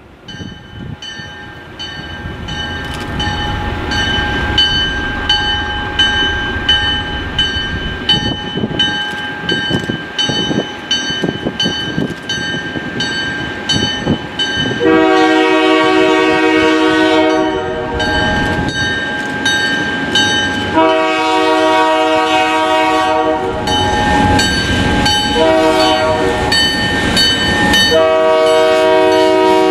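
A diesel freight train led by an MLW M420 locomotive approaches, its engine rumble growing louder, while a bell rings steadily at about two strikes a second. From about halfway through, the locomotive's multi-note air horn sounds four blasts of about two to three seconds each, the last one still going at the end.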